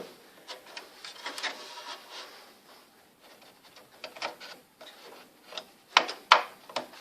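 Handling noises of a RAM module being fitted into a desktop PC's memory slot: soft rubbing and small knocks, then two sharp clicks about six seconds in.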